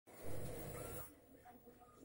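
Rustling handling noise on the phone's microphone for about a second as the camera is moved, then a quiet room.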